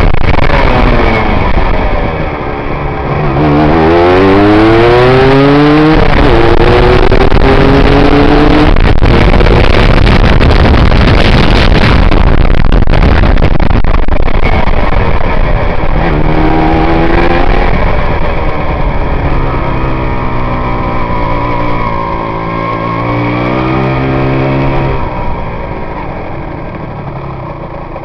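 Aprilia RS125's single-cylinder two-stroke engine under way, heard through a helmet camera: it revs up through the gears, the pitch climbing and dropping back at each shift, then is buried in rushing wind at speed. Later it climbs again, holds steady for several seconds, and eases off near the end.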